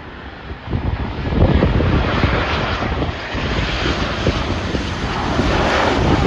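Jet airliner passing low overhead: its engine noise swells about a second in and stays loud.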